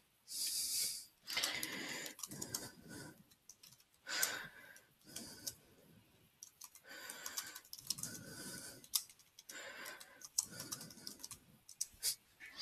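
Computer keyboard typing: keys clicking in short, irregular runs as words are entered one per line.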